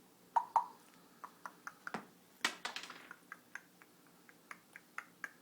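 Pet parrot making a run of short, sharp clicks, about two dozen at irregular spacing, the loudest about two and a half seconds in.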